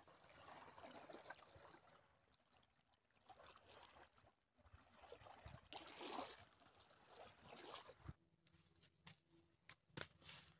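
Near silence: faint outdoor ambience with soft rustling and a few small clicks near the end.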